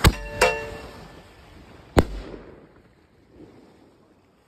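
A 906 Fireworks Uber Super Clown Prince canister shell firing from its mortar tube: two sharp reports in the first half-second as it launches, the second with a brief ringing tone. About two seconds in comes a single loud bang as the shell bursts overhead, then the sound dies away.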